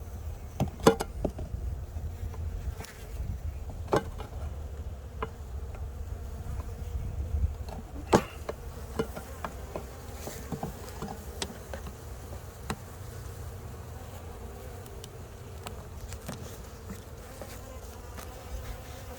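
A package of honeybees buzzing steadily, with sharp knocks and clicks of a metal hive tool prying at the package's syrup feeder can, loudest about a second in, at four seconds and at eight seconds.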